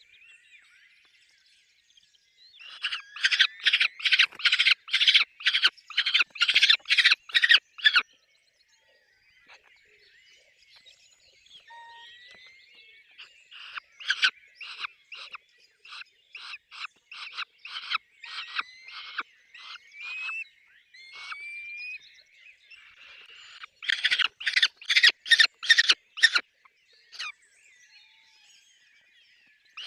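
Peregrine falcons calling at the nest: bouts of rapid repeated calls, about two to three a second. The loudest bouts come a few seconds in and again near the end, with a softer run between them that carries a few thin rising whines.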